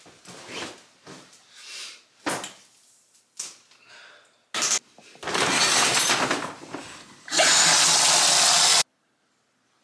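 Clothing rustling with a few light knocks, then, from about five seconds in, a steady rush of water pouring from a bathtub spout. The rush is loudest in its last second and a half and cuts off abruptly near the end.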